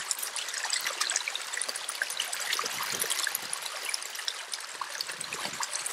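Pond water steadily trickling and splashing as it runs out through a drain under a path.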